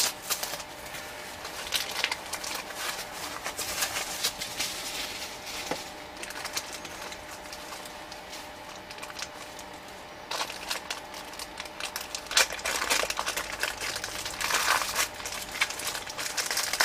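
Packaging rustling and crinkling in irregular bursts as a small panel meter is unwrapped by hand. The handling gets busier over the last several seconds.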